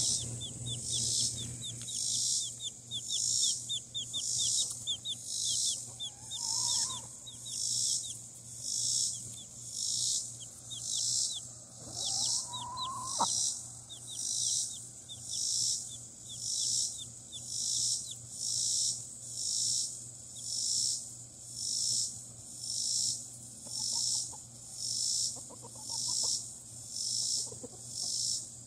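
A summer insect chorus pulsing steadily, swelling and fading a little slower than once a second. Faint short high chirps run beneath it, and there are two brief rising calls, one about six seconds in and one about twelve seconds in.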